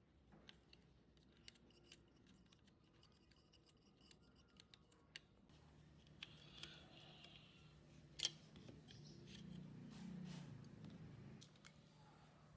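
Faint handwork sounds: a run of small irregular clicks and scrapes, with one sharper click about eight seconds in.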